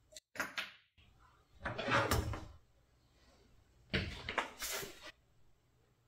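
Hand tools and small parts handled and set down on a wooden workbench: three bursts of handling noise, the loudest about two seconds in.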